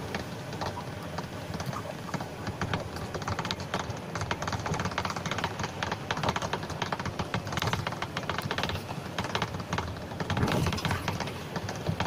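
A car rattling and jolting along a rough unpaved road, heard from inside: a steady low rumble with dense, irregular clicks and knocks.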